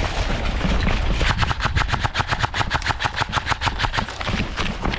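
Airsoft rifle firing a sustained full-auto burst of about eleven shots a second, starting about a second in and lasting roughly three seconds.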